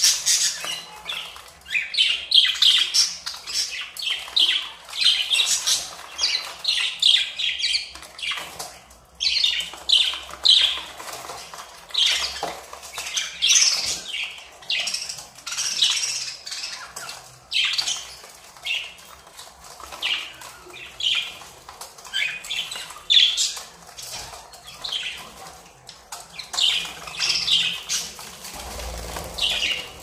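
Several budgerigars chattering and squawking in rapid, overlapping short calls, with wings fluttering as they are handled in a crowded wire carrier.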